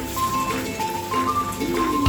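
Background music: a melody of short held notes stepping up and down over a light beat.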